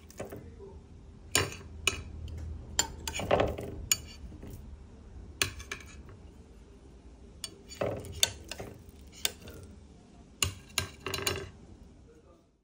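Metal spoon scraping and clinking against a glass baking dish while lifting out pieces of barfi, in a series of sharp, irregular clicks and taps.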